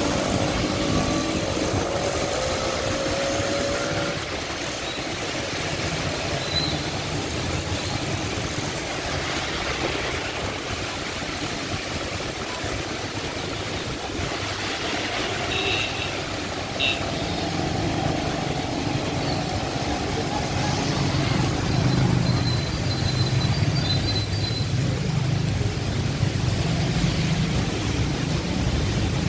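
Steady rain and passing traffic on a wet city street: cars and auto-rickshaws driving through, with a vehicle engine rising in pitch in the first few seconds.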